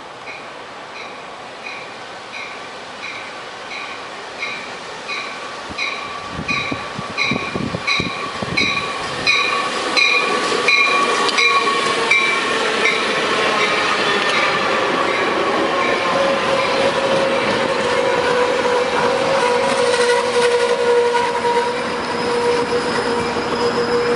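A train draws closer and passes, growing louder over the first ten seconds, with a short high ding repeating about twice a second that stops about halfway through. After that come long steady tones, one of them gliding slightly lower.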